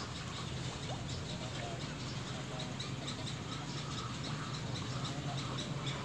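Birds calling: a dense run of short, high chirps repeating several times a second, with a few lower calls now and then, over a steady low hum.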